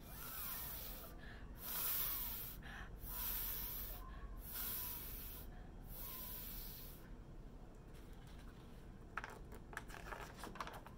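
A woman hissing a long 'fffff', the French F sound, about five times in a row with short breaks. The sound imitates air escaping from a broken pump. A few faint clicks follow near the end.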